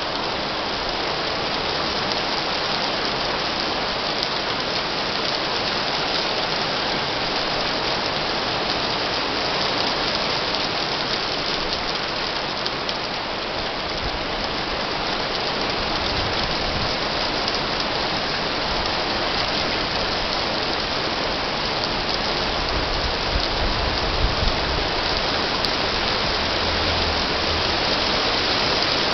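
Heavy shower of rain mixed with graupel, falling steadily and densely onto wet street pavement.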